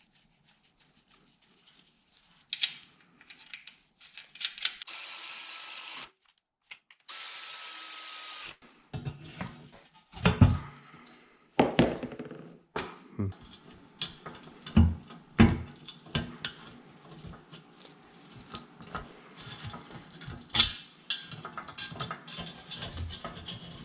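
A power tool, such as a drill or impact driver, runs twice in short bursts of about a second and a half. It is followed by a long stretch of irregular metal clanks, knocks and thumps from hand work on vehicle parts.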